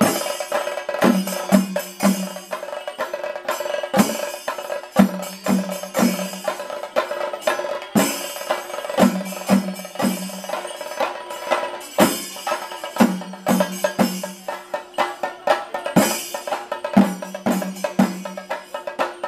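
Ensemble of chenda drums beaten with sticks in a fast, dense rhythm, with heavy accented strokes falling about every half second to a second over a continuous rolling patter.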